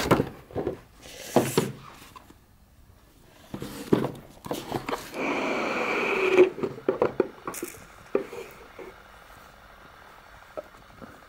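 Cardboard packaging being handled: rustles and taps, then a scraping slide of about a second and a half in the middle as a cardboard box tray is pushed out of its sleeve, followed by a few soft ticks of fabric and paper.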